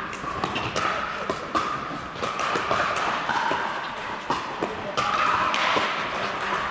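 Pickleball paddles striking a hard plastic ball: a series of sharp pops at irregular spacing, with more pops from neighbouring courts, echoing in a large indoor hall over a steady background din.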